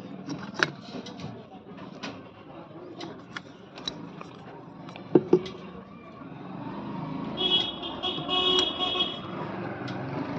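Street traffic with a vehicle horn sounding in short pulses about seven seconds in, over scattered small clicks and taps and one louder knock about five seconds in from parts being handled on the workbench.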